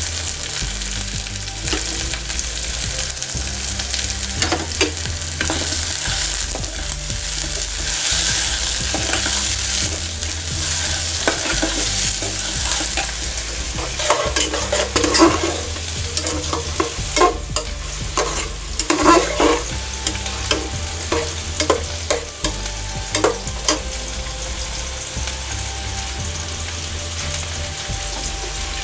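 Sliced onions sizzling as they fry in hot oil in a pot. A spatula stirs and scrapes them, in a run of quick strokes from about halfway through.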